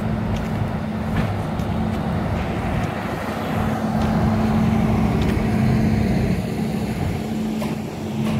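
An engine running steadily, with a constant low hum over a rough rumble that grows louder around the middle.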